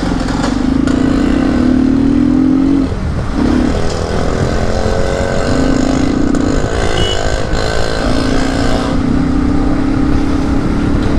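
Bajaj Pulsar NS125's single-cylinder engine running while the bike rides through town. Its steady note breaks off briefly a few times and picks up again, over road and wind noise.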